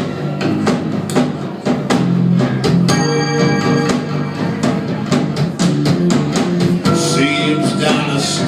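Instrumental intro of a retro soul song: a drum kit keeps a steady beat under bass and sustained pitched instruments.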